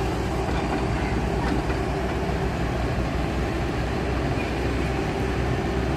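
Kobelco crawler excavator's diesel engine running steadily as the machine works its boom.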